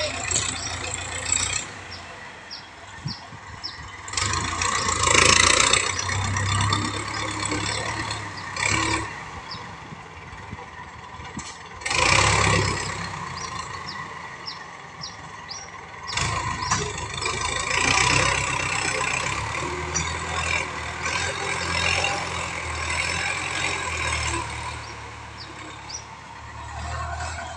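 New Holland 6640 tractor's diesel engine working under load as it pulls a tillage implement through soil, growing louder in several surges. Faint short high chirps come and go over it.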